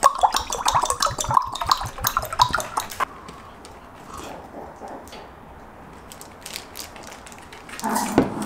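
Makgeolli glugging and splashing as it is poured from a plastic bottle into a glass beer mug, stopping about three seconds in. After that, quieter faint swallowing sounds as it is drunk.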